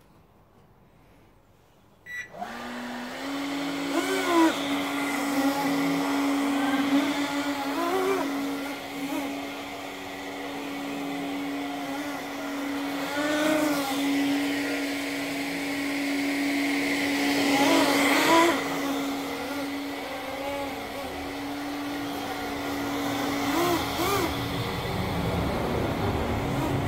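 RC model hovercraft (HoverHawk) starting up about two seconds in, then running: a steady motor hum with a whine that repeatedly rises and falls as the throttle is worked while it is driven around.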